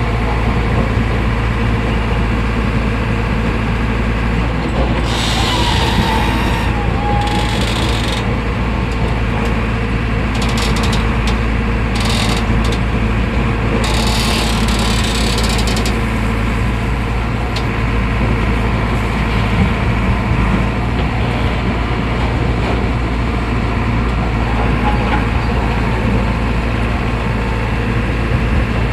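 Diesel engine of an old JCB backhoe loader running steadily with a low drone, with several spells of hissing noise over it about five, ten and fourteen seconds in.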